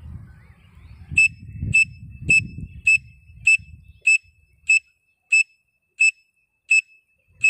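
A pen cap blown as a whistle through cupped hands, giving a run of short, shrill, evenly spaced notes, about two a second, in imitation of a grey francolin's call. The notes start about a second in. A low rumble is heard under the first few seconds.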